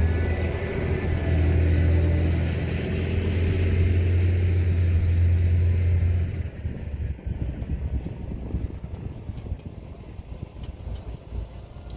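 Heavy diesel engine of construction machinery running hard, with a steady low drone, then easing to a quieter idle about six and a half seconds in as a faint high whine slides down in pitch.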